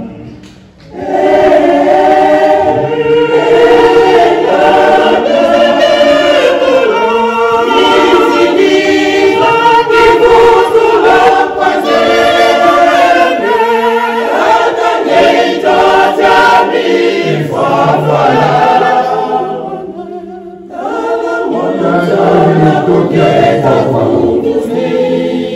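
Church choir singing a hymn, starting about a second in, with a short pause about twenty seconds in.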